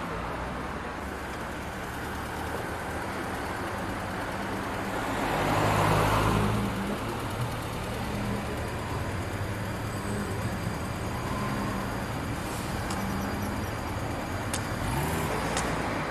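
Road traffic: cars running past, with one vehicle passing close and louder about six seconds in. A few sharp clicks near the end.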